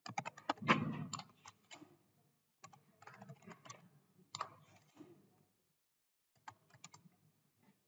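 Computer keyboard typing: three bursts of quick keystrokes as terminal commands are entered.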